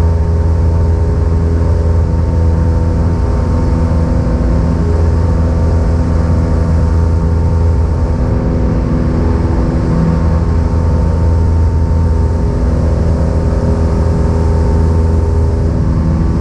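Cessna 172's piston engine and propeller running steadily at constant power, a loud, even drone with no change in pitch.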